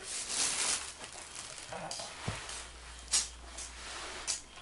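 Rustling and light plastic knocks of a toy dart blaster being handled and readied on a carpet, over a steady hiss.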